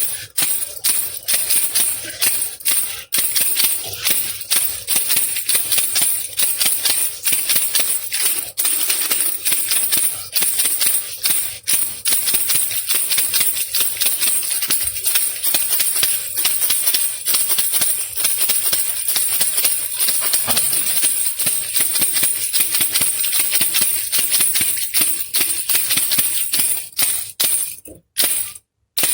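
Baby rattle shaken continuously in a fast, dense rattle, broken by a couple of short pauses near the end.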